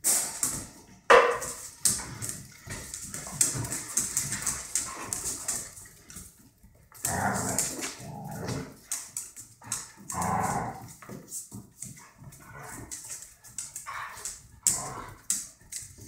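Two dogs play-fighting: barks and yips come in bursts, with lots of quick clicking and skittering of claws on a tiled floor throughout.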